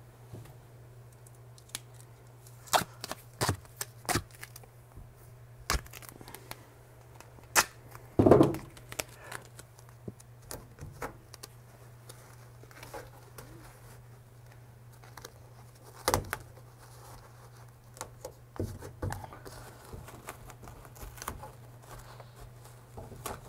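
Duct tape being pulled off the roll and torn in short rips, with taps and crinkles as it is pressed over insulation batting. The sounds come in scattered, separate bursts, the longest and loudest about eight seconds in, over a steady low hum.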